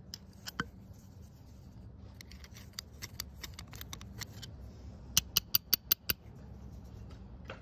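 Small metal tools clicking and scraping against the metal body of a motorcycle fuel valve as they are worked in its bore: scattered light ticks, then a quick run of about six sharp clicks about five seconds in.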